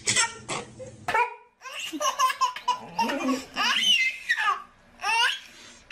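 A baby laughing again and again, after a short break about a second and a half in.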